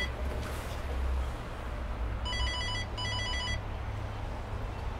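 Cyfral door intercom panel sounding its call tone: two short trilling rings a little over two seconds in, each about half a second long, calling the flat. A steady low hum lies underneath.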